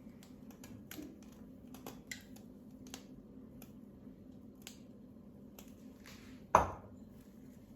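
Cooking oil heating in a pan, with scattered faint ticks and pops over a low steady hum, and one loud knock about six and a half seconds in.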